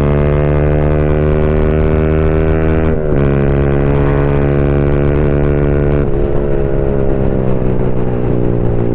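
Yamaha MT-15's single-cylinder engine through a full-system Akrapovic exhaust with its dB killer removed, pulling hard at highway speed with a steady rising note. About three seconds in the note dips briefly as the bike shifts up a gear, then climbs again. Around six seconds in the throttle closes and the exhaust note falls away and turns rougher on the overrun.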